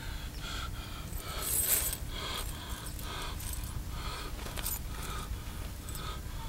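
Coins jingling and clinking inside a cloth bag as it is handled and swung onto a shoulder, with the loudest jingle about one and a half seconds in. A rapid series of short high chirps repeats behind it.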